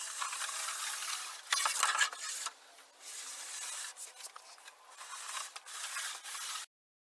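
A sheet of 3/4-inch maple veneer plywood and a long straightedge being slid and positioned on a work table, a rubbing and scraping sound with a louder stretch of scraping about a second and a half in. It cuts off abruptly near the end.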